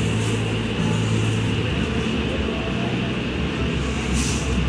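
Street traffic: vehicle engines running steadily, with a brief hiss about four seconds in.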